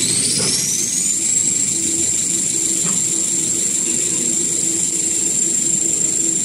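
1850 mm toilet paper and kitchen towel rewinding machine running: a high whine rises in pitch over the first second or so as the machine comes up to speed, then holds steady over a low mechanical hum.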